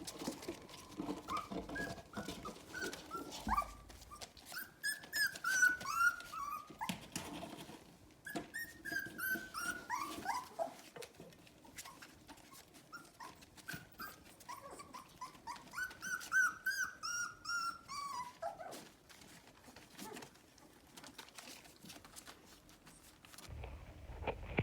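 Young puppies whimpering in runs of short, high squeaks that slide down in pitch, with many small clicks and smacks between the calls.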